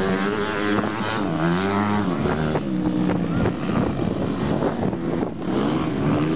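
Motocross dirt bike engines revving on the track, the pitch climbing and dropping several times as the riders accelerate and back off.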